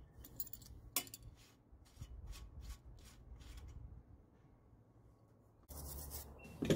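Light metallic clicks and taps of hand tools working on a bicycle's bottom bracket, several short ones in the first few seconds. Near the end the sound changes abruptly to a steady low hum with one sharp click.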